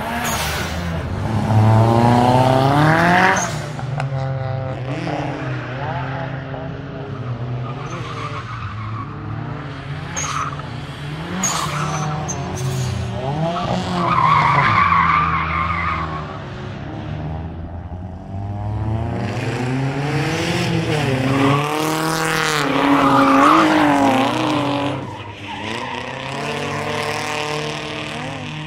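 Datsun 240Z's swapped-in SR20DET turbo four-cylinder revving up and down again and again while drifting, with tyre squeal rising over the engine twice, around the middle and again about three quarters of the way through.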